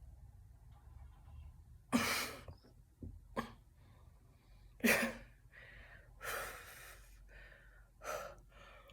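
A person hiccuping repeatedly: about five sudden, sharp hics with breathing between, the loudest about two and five seconds in.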